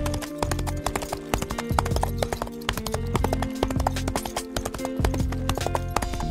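Horse hooves clip-clopping in a rapid run of sharp knocks, over background music with a pulsing bass.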